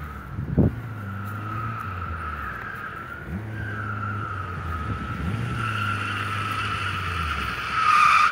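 Tyres of a 2002 Suzuki Swift squealing as the car corners hard: a wavering squeal that swells to its loudest near the end.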